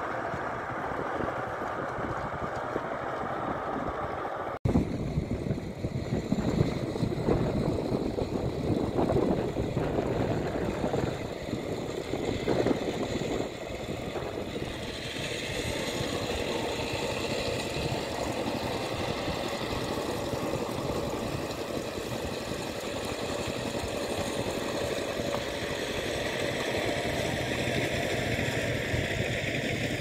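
A small engine running steadily. About four and a half seconds in, the sound changes abruptly and turns louder and more uneven for several seconds before settling back to a steady run.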